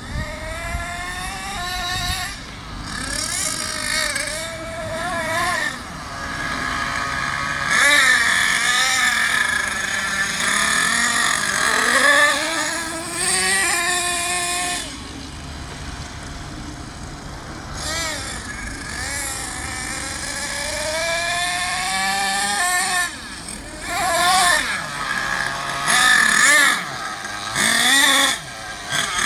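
Thunder Tiger MTA-4 radio-controlled monster truck's .28-size two-stroke nitro glow engine running hard, its pitch climbing and dropping again and again as it accelerates and lets off the throttle.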